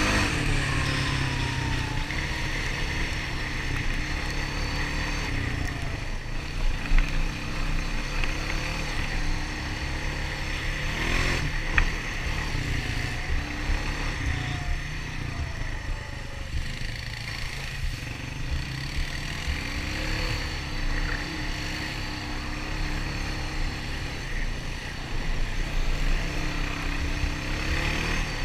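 Honda ATV engine running steadily on a trail ride, its engine speed rising and falling a little, with a few brief knocks about 7 and 12 seconds in.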